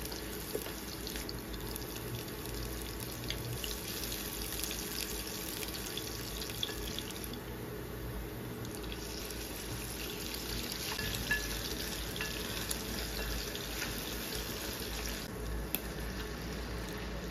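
Chopped onion and garlic sizzling in hot oil in a frying pan, a steady hiss with light crackles. Near the end, liquid is poured into the pan.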